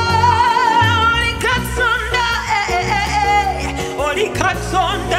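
Gospel worship music: a singer draws out long wavering notes with strong vibrato and no clear words, over sustained chords and a steady bass.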